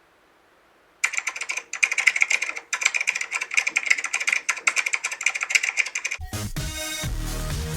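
About a second of dead silence, then rapid computer-keyboard typing clicks for about five seconds, then electronic dance music with a heavy bass beat starts near the end.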